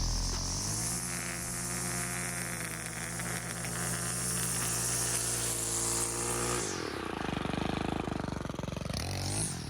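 An engine running: it revs up about a second in, holds a steady pitch, then drops off about seven seconds in to a rougher, uneven running.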